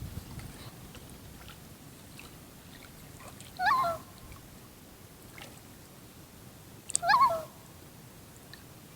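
Common loon calling: two short, wavering calls about three seconds apart over quiet lake ambience.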